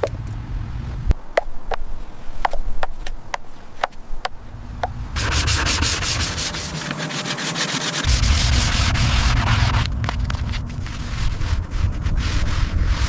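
Abrasive sanding, with scattered sharp clicks for the first few seconds, then a dense, continuous rasping from about five to ten seconds in.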